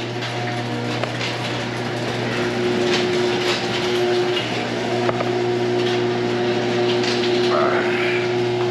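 Electric ceiling-mounted garage door opener running with a steady motor hum as it lowers the sectional garage door to close it, with a few light clicks along the way.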